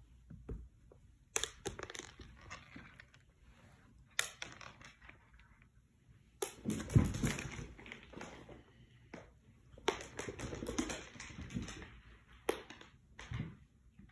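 A cat crunching dry cat treats off a hardwood floor, in crackly spells, with several sharp clicks of treats dropping onto the wood.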